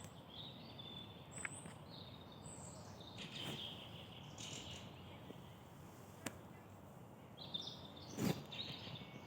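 Small songbirds chirping and trilling in woodland over faint steady background noise, with a few soft clicks and a louder thump near the end.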